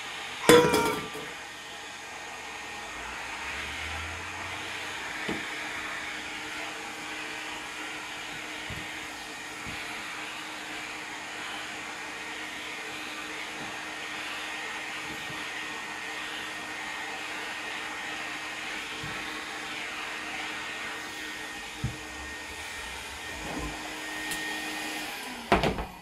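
Canister vacuum cleaner running steadily: a steady hum with a fainter higher whine over a rush of air. There is a brief loud noise about half a second in, and a few sharp knocks near the end.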